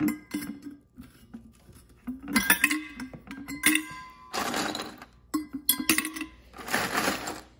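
Ice cubes grabbed from a freezer ice bin and dropped by hand into an insulated stainless-steel water bottle: several separate bunches of clinks and clattering rattles.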